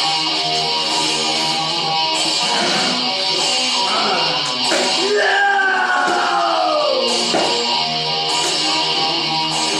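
Music led by guitar, with long falling pitch bends around the middle.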